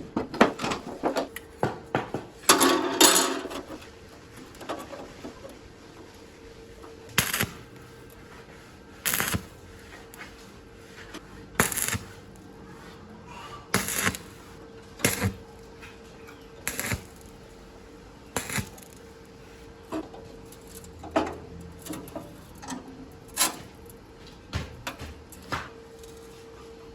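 Metal parts and tools being handled: irregular sharp clicks and knocks, about one every second or two, with a quick cluster of clinks about three seconds in, over a faint steady hum.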